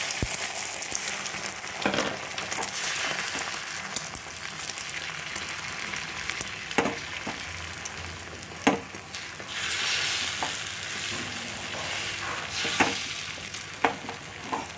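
Beaten egg sizzling as it fries in oil on a hot tawa griddle: a steady hiss, with a few sharp taps here and there.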